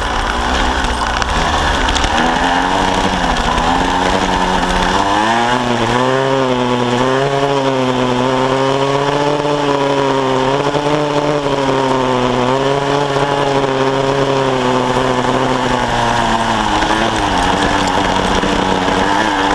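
Kawasaki KSR-2's small two-stroke single-cylinder engine pulling the bike along a dirt trail. It revs up sharply about five seconds in and is held high with a wavering pitch, then eases off near the end.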